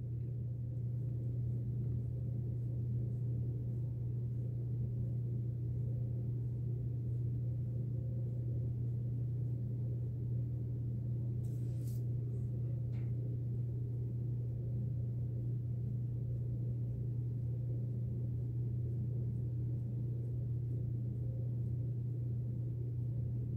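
A steady low hum that holds the same pitch and level throughout, with a couple of faint ticks about halfway through.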